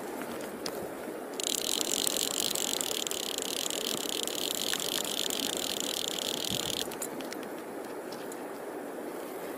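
Fly reel's click-and-pawl drag buzzing as a hooked trout pulls line off, a high, dense ratcheting that starts suddenly about a second and a half in and stops suddenly about five seconds later. River water runs underneath.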